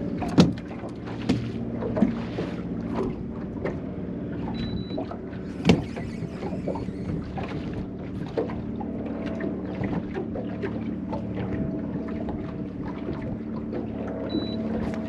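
Small waves slapping and knocking irregularly against the hull of a small boat, with a steady low hum underneath. The sharpest knocks come about half a second in and again near the middle.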